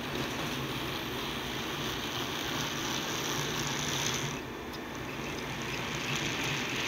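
HO-scale model train running past close by: the locomotive's electric motor hums and the wheels rumble along the track in a steady running noise. The higher part of the noise drops away briefly about four seconds in, then returns.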